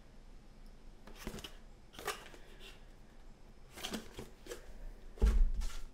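Handling noises on a table: a handful of short rustles and clicks, then a loud low thump with rumble near the end.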